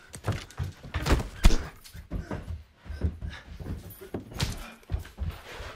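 A scuffle between two men: grunts and strained breathing mixed with irregular thumps and knocks of bodies and hands striking. The loudest is a hard thump about a second and a half in.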